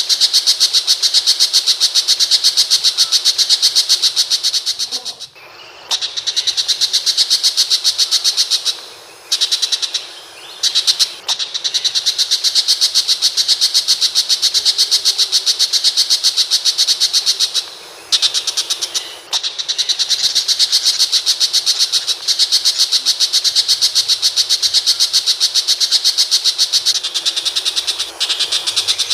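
Tiger shrike calling: long runs of rapid, evenly repeated high-pitched notes, broken by a few short pauses.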